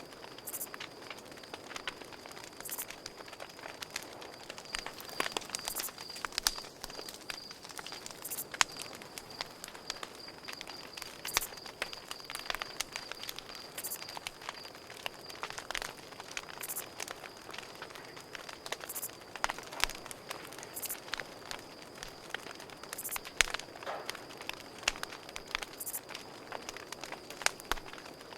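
Campfire crackling with irregular sharp pops and snaps, over a steady high-pitched cricket trill.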